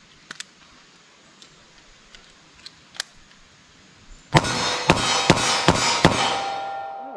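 A few light metallic clicks as a moon-clipped reload goes into a Taurus 905 9mm snub-nose revolver. Then, after about four seconds, come five quick loud shots from it, roughly a third of a second apart, with a steel target ringing on after them.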